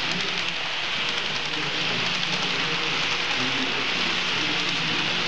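Model trains rolling along the layout's track: a steady, dense rushing rattle of many small wheels running over the rails, with fine ticking through it.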